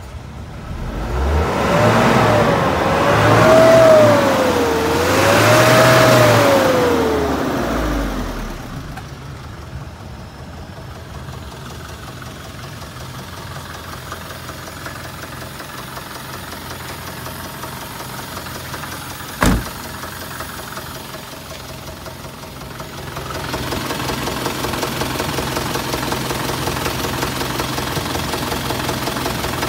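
Isuzu Elf truck's engine revved up twice, its pitch rising and falling, then settling back to a steady idle. A single sharp knock sounds about two-thirds through, and the idle is louder over the last few seconds.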